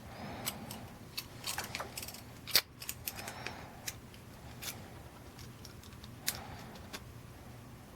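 Faint metallic clicks and scraping of a lock pick working inside a Yale cabinet lock whose plug is tight and won't turn, with one louder click about two and a half seconds in.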